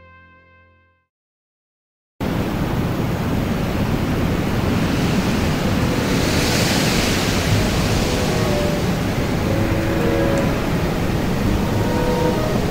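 A brass chord fades out in the first second; after about a second of silence, loud steady wind and ocean-wave noise cuts in suddenly and runs on, heavy and rumbling low down.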